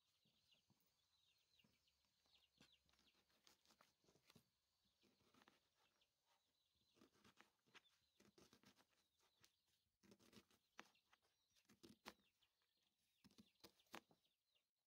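Faint, irregular taps of a kitchen knife cutting through an onion onto a plastic cutting board, with birds chirping faintly in the background.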